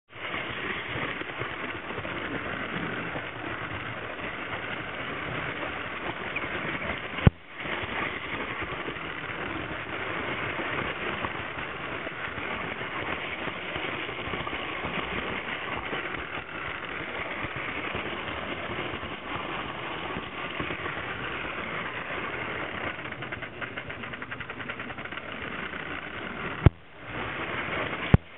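Electric model steam train running on metal track, a steady rattling whirr of its wheels and motor heard from on board. Two sharp clicks break it, about seven seconds in and near the end.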